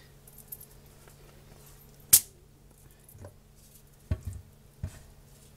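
Quiet kitchen handling as a tortilla is laid out on aluminium foil: one sharp knock about two seconds in, then a few softer taps, over a faint steady hum.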